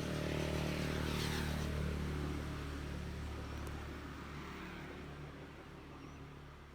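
A motor vehicle drives past: a steady engine drone that is loudest over the first two seconds, then gradually fades away.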